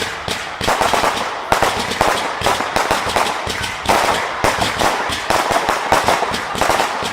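Consumer fireworks going off in a dense barrage: rapid cracks and bangs, several a second, overlapping without a break.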